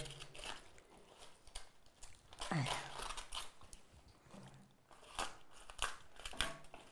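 Kitchen knife cutting pieces off a Savoy cabbage held in the hand: an irregular series of crisp, crunchy cuts through the leaves.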